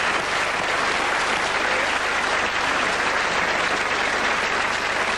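Audience applauding steadily, a dense even clapping with no let-up.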